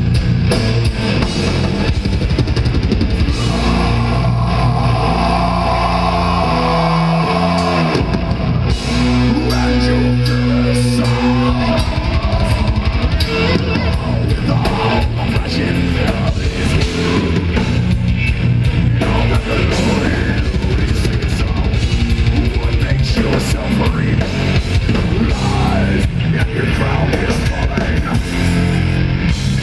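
Death metal band playing live at full volume: distorted electric guitars holding heavy sustained chords that change every few seconds, over bass and drum kit.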